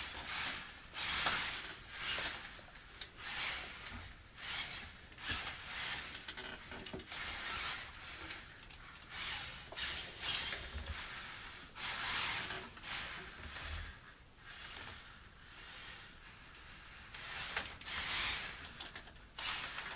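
Geared-down hobby RC servos in a small 3D-printed robot dog's legs whirring in short bursts, about once a second, as the legs shift the body through roll and yaw moves.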